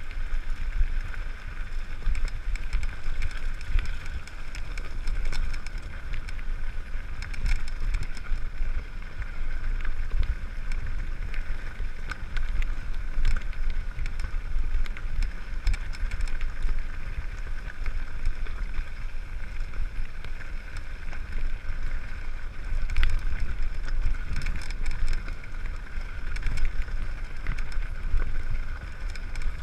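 Mountain bike rolling downhill on a loose gravel track: tyres crunching over stones, the bike rattling with scattered clicks and knocks, and wind rumbling on the bike-mounted camera's microphone.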